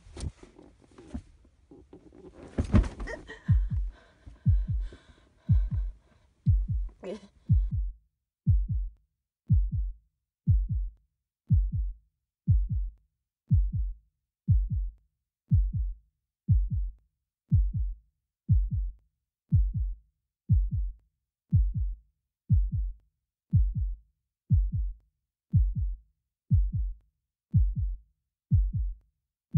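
Heartbeat sound effect: a deep double thud, lub-dub, about once a second, each beat dropping in pitch, running steadily on. For the first few seconds it is partly covered by rough handling noise and a voice.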